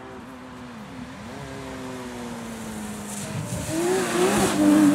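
Porsche 911 rally car's flat-six engine approaching and growing steadily louder. Its note dips briefly about a second in as the throttle is lifted. Near the end it revs hard and warbles as the car slides past on gravel, with a hiss of thrown stones.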